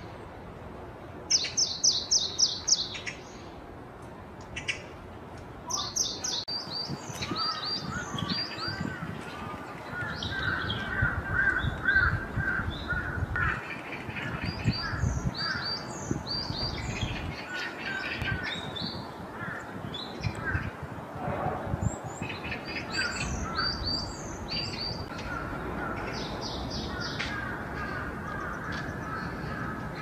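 Birds calling: small songbirds give high chirping notes in quick repeated series, and a crow-like bird gives runs of harsh, lower cawing notes.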